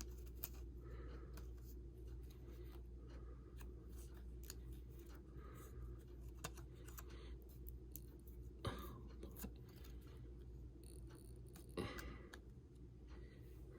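Faint small clicks and rustles of fingers peeling the plastic backing off battery adhesive strips and handling the parts, over a low steady hum; two slightly louder clicks come late.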